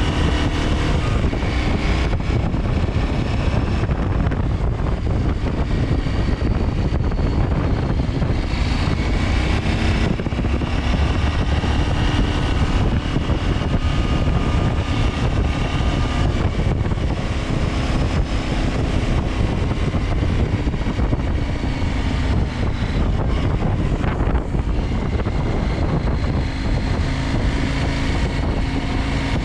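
KTM 890 Adventure's parallel-twin engine running on the move under heavy wind rush over the microphone, its pitch drifting up and down a little with the throttle.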